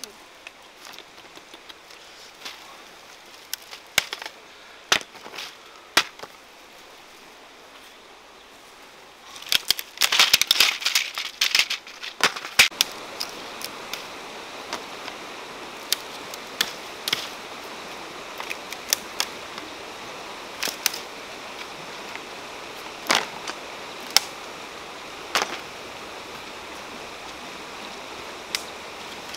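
Twigs and branches of a flamboyant tree snapping and rustling as they are pulled by hand: scattered sharp snaps, with a dense burst of crackling and leaf rustle about ten seconds in. A steady rushing noise sets in underneath at the same time.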